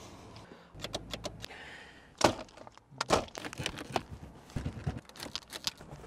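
A car's doors and fittings being handled: a quick string of clicks, knocks and thuds, the sharpest knocks about two and three seconds in.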